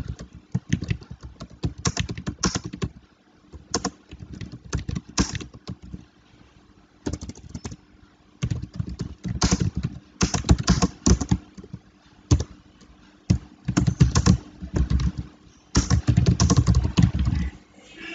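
Typing on a computer keyboard: runs of rapid, irregular key clicks broken by short pauses.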